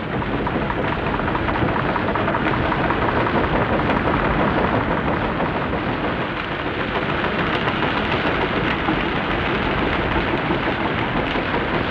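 Small hydro turbine running, a loud steady roar of rushing water and machinery.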